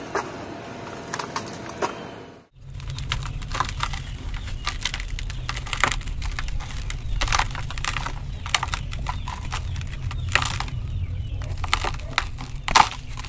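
Hands crushing and crumbling dry sand-cement blocks: a dense run of gritty crackles and crunches with occasional sharper cracks, over a steady low rumble. In the first couple of seconds dry sand trickles through fingers, then the sound briefly drops out before the crunching starts.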